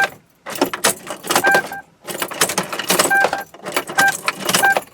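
1999 Toyota Tacoma's starter clicking without cranking the engine as the ignition key is turned again and again, the key ring jangling with each try, with a few short beeps among the attempts. This no-start click turned out to come from dirty battery terminals and cable connections.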